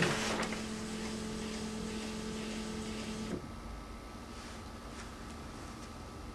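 Motor of a large-format sheet-feed scanner running with a steady hum as it finishes drawing the sheet through, starting with a click and stopping with a small knock about three seconds in. A fainter steady tone remains after it stops.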